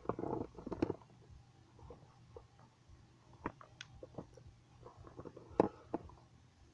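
Light handling noises: a brief rustle and knocks about a second in, then a few scattered sharp clicks over a faint steady low hum.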